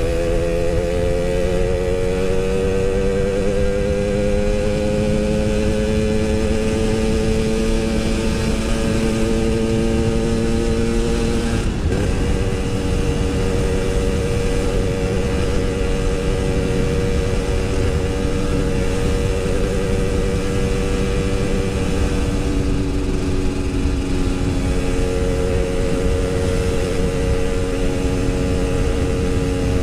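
Yamaha RX-King 135cc two-stroke single-cylinder motorcycle engine under way, its pitch climbing slowly for about twelve seconds as it pulls. The pitch then drops suddenly at an upshift and holds steady.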